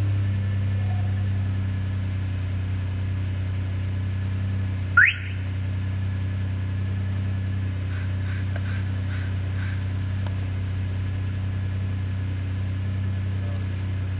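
Vehicle engine running with a steady low hum. About five seconds in, a car alarm wired into the flat-4 trailer wiring gives one short rising siren whoop and cuts off at once.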